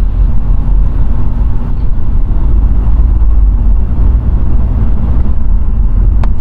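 Steady low rumble of road and engine noise inside a moving car's cabin, with a single sharp click near the end.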